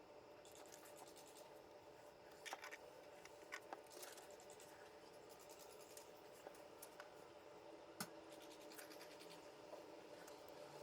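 Near silence: faint room tone with a few soft clicks and scratches, the sharpest about eight seconds in.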